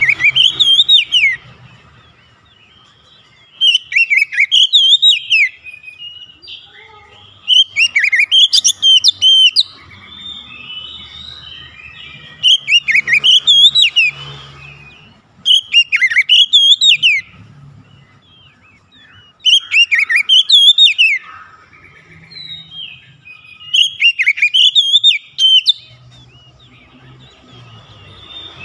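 Oriental magpie-robin singing: loud, rich whistled phrases of one to two seconds, about seven of them, each returning every three to four seconds, with softer twittering between.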